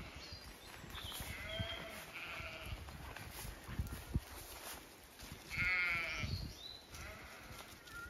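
Zwartbles sheep bleating: a few faint calls, then one louder, quavering bleat a little past halfway. Low rustling and thumps run underneath.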